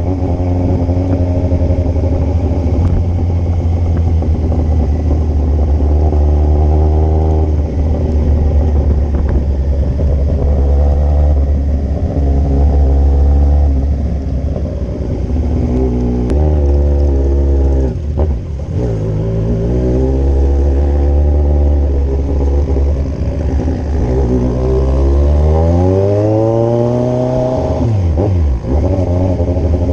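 Kawasaki Z1000's inline-four engine under way. Its pitch climbs through the revs and drops back again and again as it shifts through the gears, with sharp throttle-off dips about two-thirds of the way through and again near the end.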